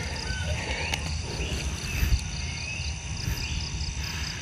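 Insects chirping in a rapid, even pulse, with a few short sliding calls and a low rumble underneath.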